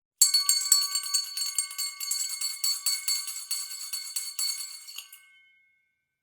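School bell ringing: rapid repeated strikes over a steady metallic ring for about five seconds, then it stops and the tone dies away briefly.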